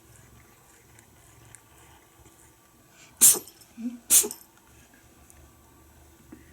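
Tabby cat sneezing twice, about a second apart, with two short sharp bursts and a small snuffle between them.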